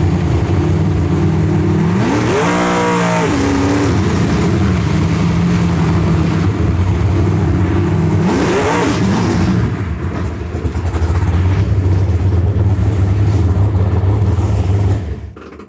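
Naturally aspirated 632 ci big-block Chevy V8 in a jet drag boat running at high revs during a pass. It is loud and steady, with two quick rises in pitch about two and eight seconds in, and it cuts off just before the end. The engine is running flat, which the driver likens to being stuck on a rev limiter all the way down the track; a failing ignition coil is suspected.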